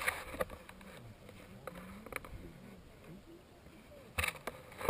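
Faint voices of people talking a little way off, with scattered clicks and rustles close to the microphone and a louder rustle about four seconds in.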